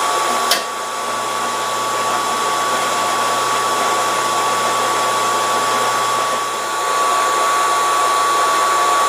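ZX45 mill-drill running steadily with a constant high whine while milling a cast aluminium block. There is a single click about half a second in.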